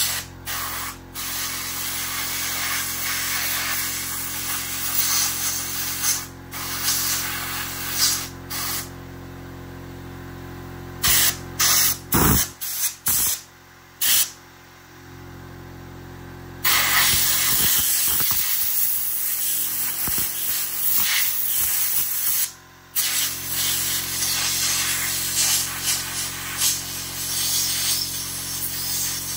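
Compressed air blowing from an air-compressor blow gun: a hiss that starts and stops sharply, with a few short blasts around the middle, then long stretches of continuous blowing. A steady low hum runs underneath.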